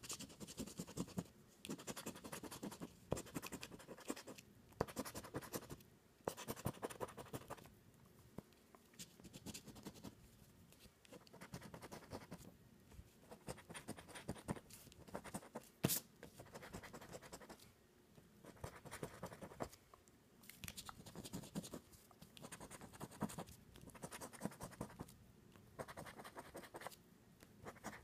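Scratch-off lottery ticket (a $20 Deluxe 7's Playbook scratcher) being scratched, its coating scraped off in short repeated bouts with brief pauses between, roughly one every couple of seconds and easing off for a few seconds about a third of the way in. A single sharp click about halfway through.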